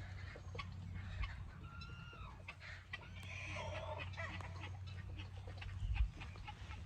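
Chickens clucking and calling, with a few short rising-and-falling calls in the middle of the stretch.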